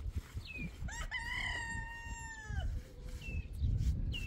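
A rooster crowing once: a single long crow, about two seconds long, starting about a second in, with a sharp rising start, a held middle and a falling end. Short high chirps sound before and after it.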